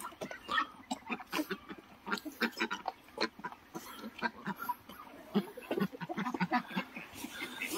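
A flock of domestic poultry, ducks and geese among them, calling from a netted pen: many short, overlapping calls in an irregular stream.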